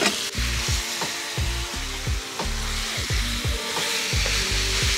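Ground Italian sausage and ground beef sizzling as they brown in a stainless skillet, stirred with a wooden spoon. The sizzle is a steady high hiss.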